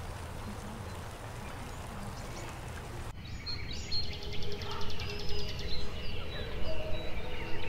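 A steady outdoor hiss that cuts off abruptly about three seconds in, giving way to birds chirping, with one rapid trill, over soft sustained notes of music.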